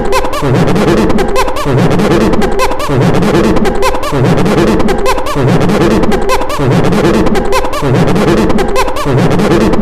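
A man's voice run through a voice-changing filter, making monkey-like, laughing hoots. The pattern repeats over and over at an even pace, a little faster than once a second.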